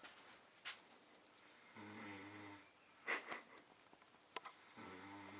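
A man snoring in his sleep: two long, low, buzzing snores about three seconds apart, with a brief sharp sound between them, a little after the middle.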